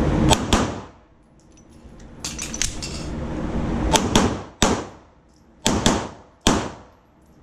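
Pistol shots fired in a timed drill: a quick pair, then a lull of about three seconds, then a faster string of about six shots, each with a sharp crack and echo.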